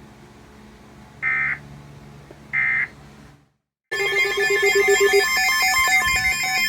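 Two short bursts of EAS digital data tones, the end-of-message code that closes a warning, about a second apart. After a brief dropout, a loud, bright electronic ringing tune with a pulsing tone starts about four seconds in.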